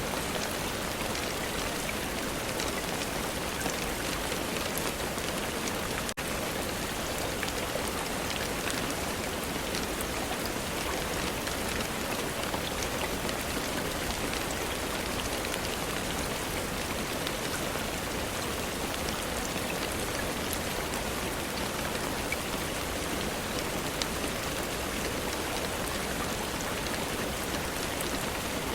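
Steady rain falling: an even hiss dotted with many small drop ticks. There is a momentary dropout about six seconds in.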